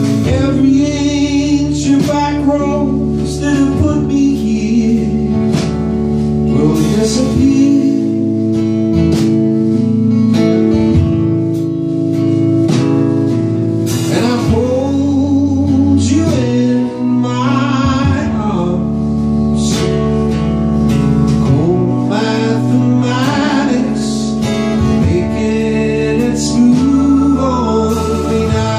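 A male singer performing live with his own strummed acoustic guitar, amplified through a club PA. A steady held note comes in near the end.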